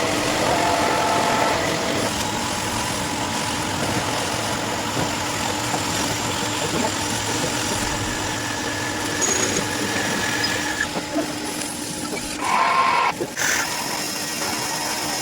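Machine tool running steadily with a constant hum. About twelve and a half seconds in there is a brief, louder, higher-pitched squeal lasting about a second.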